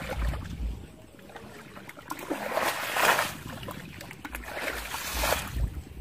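Shallow muddy water splashing and sloshing as people wade through it and a plastic jug is dipped in, with two louder splashy surges, one about two and a half seconds in and another near the end.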